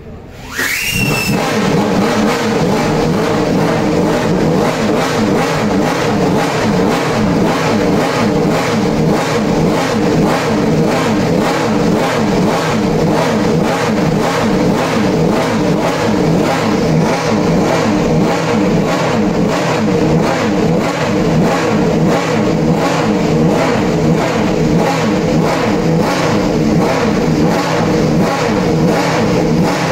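A March 88B Formula 3000 car's V8 racing engine fires up about half a second in with a quick rise in revs. It then runs loud and steady at a fast idle with a rhythmic pulse.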